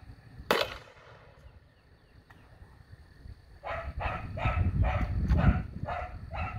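A 37mm launcher firing a homemade chalk round on a light 10-grain charge of Triple F Pyrodex: one sharp pop about half a second in. A few seconds later a dog barks in a quick series, about three barks a second.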